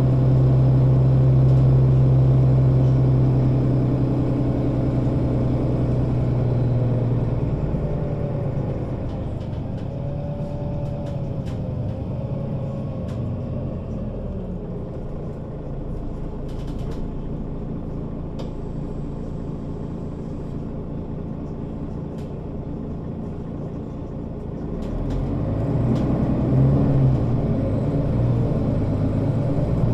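Mercedes-Benz O 530 Citaro Facelift city bus engine pulling steadily, then easing off about seven seconds in to a lower rumble as the bus rolls, with a faint rising-and-falling whine, and pulling again about 25 seconds in.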